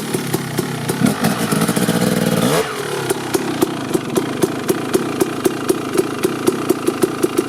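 KTM SX 250 two-stroke dirt bike engine revving. About two and a half seconds in the revs drop away and it settles to an idle, with evenly spaced pops about three a second.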